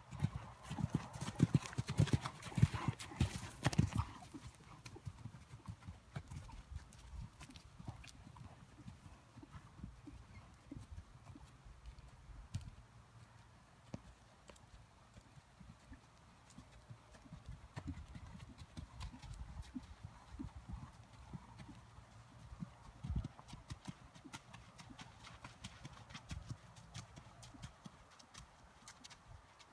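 Hoofbeats of a ridden horse working on a wet sand arena: a run of heavy, close thuds for the first four seconds, then fainter, softer footfalls as the horse moves away.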